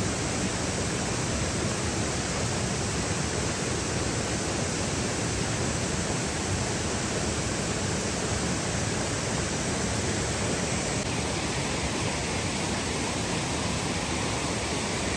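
Steady rushing of water from a stream or waterfall, a constant even hiss.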